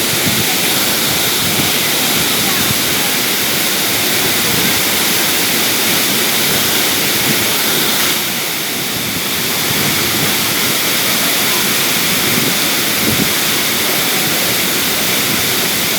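Waterfall: a loud, steady rush of falling water, easing slightly for a moment about halfway through.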